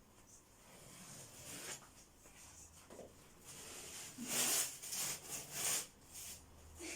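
Old wallpaper being scraped and torn off a wall: a few quiet rasping strokes, then a quick run of louder ripping and scraping strokes about four seconds in.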